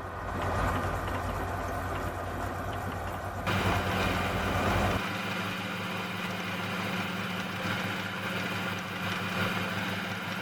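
Mini lathe's motor and belt-driven spindle starting up and running steadily at low speed while drilling a 6 mm hole. A few seconds in, the low hum shifts in tone.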